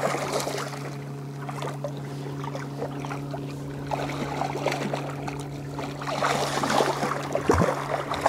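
A hooked blue catfish splashing at the surface beside a jon boat, with water slapping against the hull, under a steady low hum. The splashing and water noise grow louder near the end.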